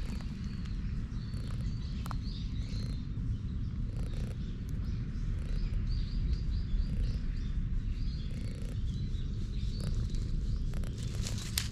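A cat purring steadily as its head is stroked.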